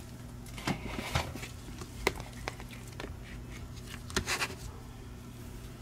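Scattered light knocks and rustles of hands handling a mouse and laying a mousepad down on a silicone work mat, with a small cluster of taps about four seconds in, over a faint steady low hum.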